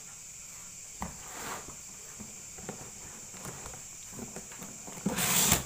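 A cardboard box being opened by hand: a small click and a soft rustle about a second in, then a loud scraping rip of the flaps being pulled open near the end.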